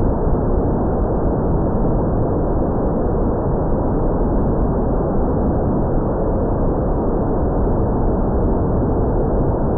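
Steady, dull rushing noise of wind buffeting the microphone, unbroken and without any clear motor or propeller tone.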